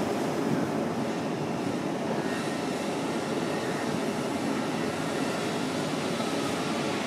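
Steady background rumble with a hiss over it, even throughout, with no distinct knocks or voices.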